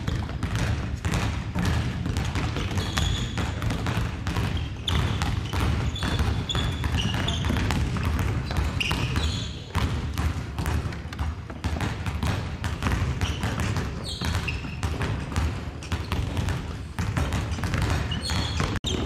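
Many basketballs bouncing on a hardwood gym floor, a dense, continuous stream of thuds, with short high squeaks now and then.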